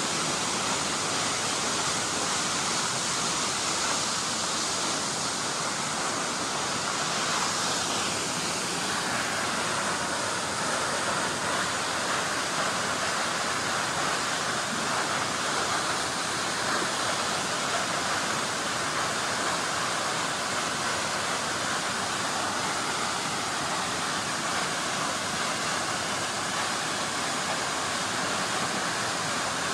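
Steady rush of falling water from a waterfall, an even, unbroken hiss with no gaps.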